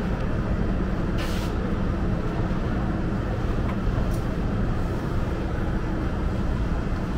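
Steady low rumble of indoor market-hall background noise, with a short hiss about a second in.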